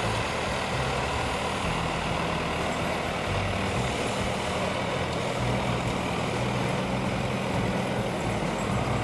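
Heavy logging machine's engine running steadily, a low drone under a broad rushing noise.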